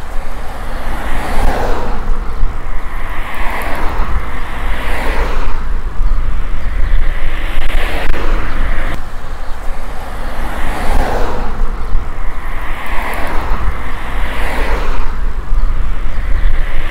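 Wind buffeting the microphone of a camera on a moving bicycle: a heavy steady low rumble, with a swishing noise that swells and fades every two seconds or so.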